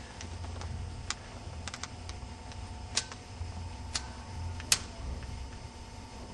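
Irregular sharp clicks and taps, a dozen or so spread unevenly, the loudest near the end, over a steady low hum.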